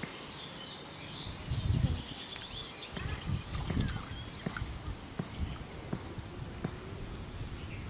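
Rural outdoor ambience: a steady high insect drone with a few faint bird chirps, and scattered low rumbles and thumps.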